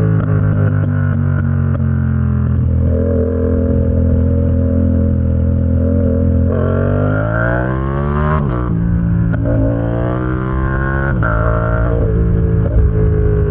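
Yamaha XSR700's 689 cc parallel-twin engine through an SC-Project aftermarket exhaust, under way. It holds a steady note for about six seconds, then revs up and drops sharply in pitch at an upshift on the quickshifter about eight seconds in. It pulls again, with another shift near eleven seconds.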